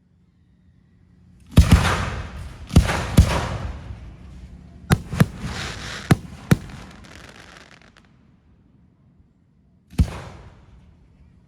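Fireworks bursting overhead: about eight sharp bangs in two quick clusters, then one more bang near the end, each fading out in a long noisy tail.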